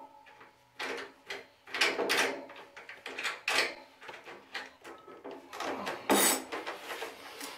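Metal tools and hardware clanking and rattling as they are handled, in about four separate bursts with a short metallic ring, the loudest near the end.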